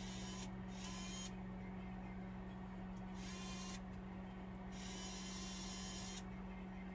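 Parts of a Dell Vostro 3500 laptop being handled and worked apart, making three short stretches of scraping and rubbing. A steady low electrical hum runs underneath.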